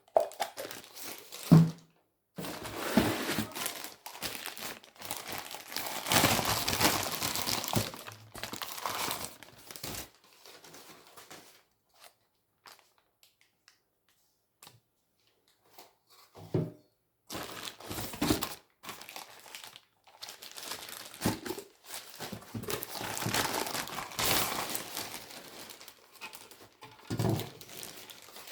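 Packaging crinkling and rustling as it is handled, in long irregular stretches with a few sharp knocks, quieter for a few seconds midway.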